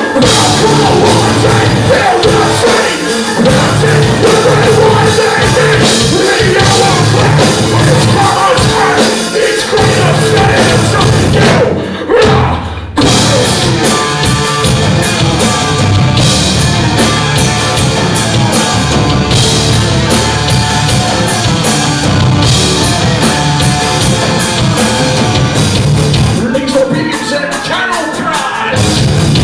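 Metal band playing live, with drums and sung and shouted vocals over the full band. About twelve seconds in the music briefly thins out for about a second, then the whole band comes back in.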